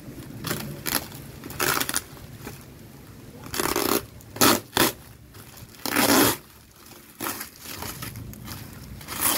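Clear plastic wrap and packing tape being pulled and torn off a parcel by hand, in a series of irregular tearing and crinkling bursts.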